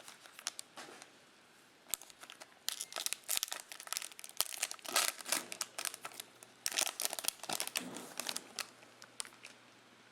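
Plastic wrapper of a trading-card pack being torn open and crinkled in the hands, a dense run of crackling for several seconds.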